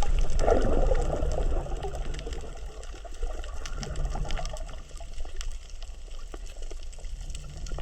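Underwater sound on a coral reef: a steady low rumble of water with a constant crackle of sharp little clicks, the reef's "michimichi" noise, which the uploader takes for coral breathing. A loud rush of water or bubbles comes about half a second in and dies away by about a second and a half.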